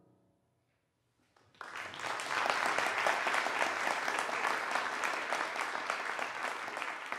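The last piano notes fade away, then after about a second of near silence an audience applauds, starting about a second and a half in and clapping steadily.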